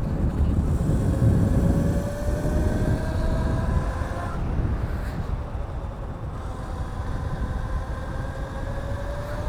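Electric motor whine from a modded Razor electric bike with a 5 kW kit, climbing in pitch as it speeds up. The whine fades out about four seconds in, then returns lower and climbs again, over low wind rumble on the microphone.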